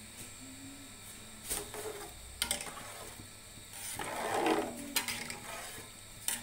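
Soaked basmati rice tipped into a pot of hot spiced water: a few sharp metal clinks, then a splashing pour about four seconds in.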